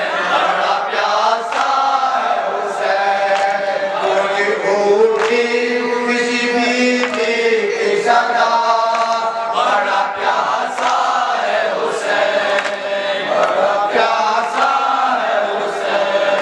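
Men chanting a Muharram noha, a mourning lament sung with long, held lines by a lead voice and a chorus through a microphone and loudspeakers. A regular beat of chest-slapping (matam) strikes about every second and a half beneath the singing.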